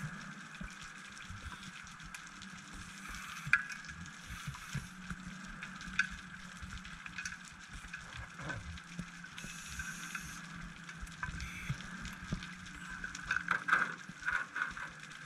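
Underwater sound heard through a camera housing: a steady low hum with scattered clicks and crackling, and a denser burst of crackles near the end.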